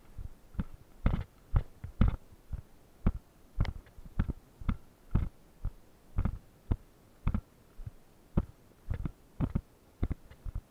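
Footsteps on a rubble-strewn concrete floor, a series of short dull thuds about two a second at an uneven walking pace.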